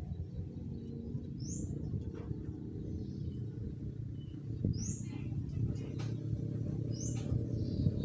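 Lovebird giving short, shrill, upward-sweeping chirps, three in a few seconds, over a steady low background rumble.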